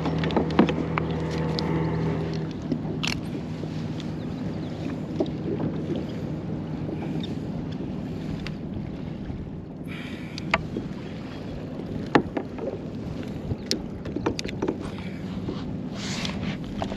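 Noises of a kayak out on the water: a steady rushing haze with scattered small knocks and clicks from the hull and gear. A low steady hum stops about two seconds in.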